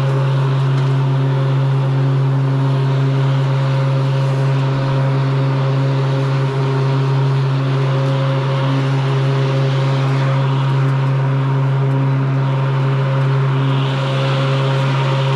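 Battery-powered walk-behind lawn mower running and cutting grass: a steady electric hum from the motor and spinning blade over a constant hiss. A brighter hiss comes in near the end.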